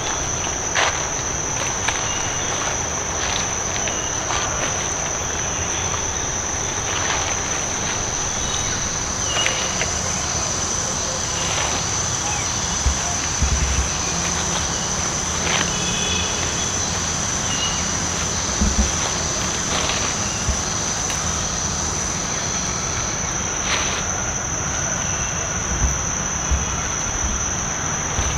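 A steady, high-pitched drone of insects in the forest, with scattered clicks and snaps and a few faint, brief chirps. A handful of low thumps stand out as the loudest moments, about halfway through and again later on.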